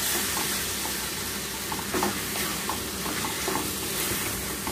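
Mutton liver with onions and capsicum sizzling as it fries in a metal pot, stirred with a spatula in short scraping strokes against the pot.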